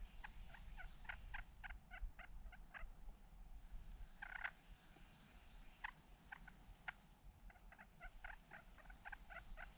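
Faint turkey yelping: a run of short, evenly spaced yelps at about four to five a second, a few single notes, then a second run near the end.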